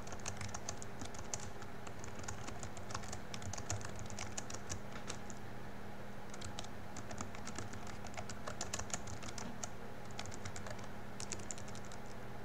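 Typing on a computer keyboard: quick runs of key clicks with a couple of short pauses, over a faint steady hum.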